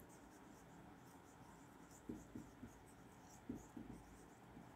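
Faint writing strokes, pen or marker scratching across a surface, in a few short bursts about two seconds in and again around three and a half seconds, over near silence.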